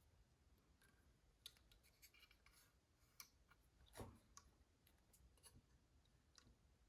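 Faint, scattered small clicks and light handling sounds, with a soft thump about four seconds in.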